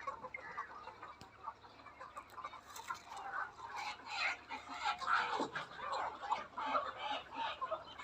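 A flock of Golden Misri chickens clucking, many short overlapping calls, growing busier about halfway through.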